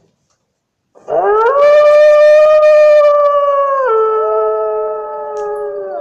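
A wolf howling: one long howl that starts about a second in, rises, holds a steady pitch, then drops to a lower pitch about three seconds later and tails off slightly.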